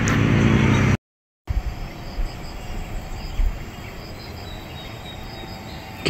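A steady, engine-like hum for about the first second, cut off abruptly; then quiet outdoor ambience with faint, intermittent high insect chirps.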